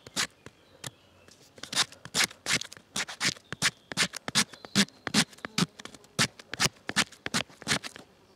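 Knife blade scraping birch bark into fine tinder shavings: short rasping strokes, a couple at the start, then a steady run of about two to three a second from a second and a half in.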